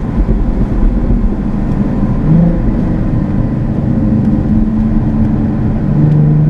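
Jaguar F-Type sports car driving on a winding road, its engine heard over a heavy low road and wind rumble. Near the end the engine note grows strong and climbs as the car accelerates.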